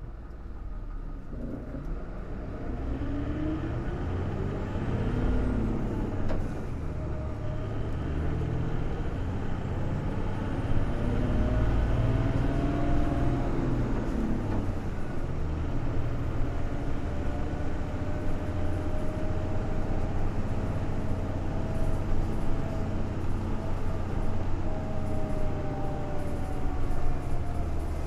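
Hino BJG-HU8JMFP hybrid city bus under way, its diesel engine pitch rising and falling in several long sweeps as it accelerates, revved hard toward the red zone.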